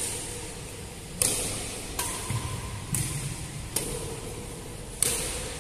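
Badminton rackets hitting a shuttlecock back and forth in a rally: six sharp hits roughly a second apart, each echoing in a large hall.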